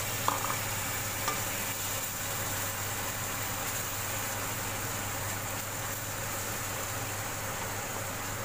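Chili-garlic sauce sizzling in a wok while a wooden spatula stirs it, with two light taps of the spatula in the first second and a half, over a steady low hum.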